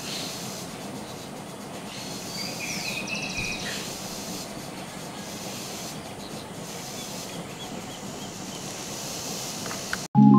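Steady outdoor hiss of wind and background noise, with a few faint high chirps about three seconds in.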